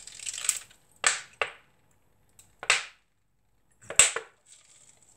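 A metal ladle clinking and tapping against a stainless steel pot as fish sauce is poured from a plastic bottle into the ladle and tipped into the pot: about five short, separate clinks and splashes, the loudest about four seconds in.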